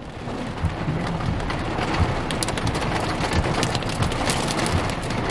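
Pea-sized hail pelting a vehicle: a dense patter of many sharp ticks, building slightly in the first second.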